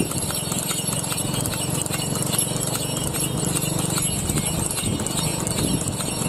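A horse's hooves clip-clopping at a brisk trot on a paved road as it pulls a light two-wheeled cart, with the jingle of the bells on its harness.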